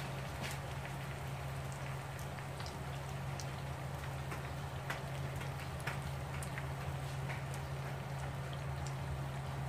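Banana rolls in spring-roll wrappers shallow-frying in hot oil: a steady sizzle with scattered sharp pops and crackles. A steady low hum runs underneath.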